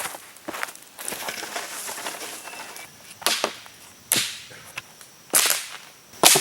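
Dry dead wood being gathered for firewood: a rough crunching, then four sharp cracks about a second apart as branches snap.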